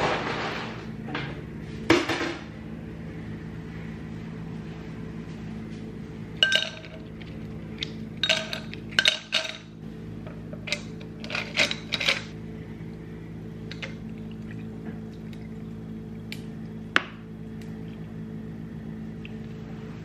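Ice cubes rattling into a tall glass, followed by a scatter of light clinks and taps against the glass as lemon slices and strawberries are dropped in, over a faint steady low hum.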